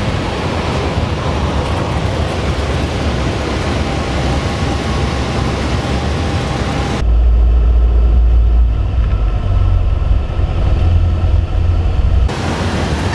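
Cessna 172P's four-cylinder Lycoming engine and propeller running steadily with airflow noise in the cabin. About seven seconds in the sound switches abruptly to a muffled, heavy low rumble of wind and engine heard from outside the cabin, then returns to the cabin noise near the end.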